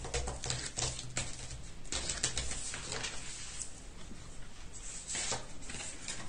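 Paper and cardstock being handled on a work table: light rustling with a quick run of small taps and clicks, densest in the first three seconds, and another short rustle about five seconds in.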